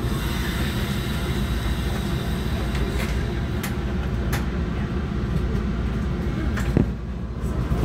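Steady low rumble inside a diesel commuter rail coach standing at a station platform, with a few light clicks in the middle and a single thump about seven seconds in.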